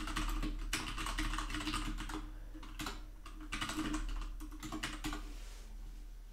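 Computer keyboard typing in quick bursts of keystrokes, with short pauses between runs, dying away about five and a half seconds in.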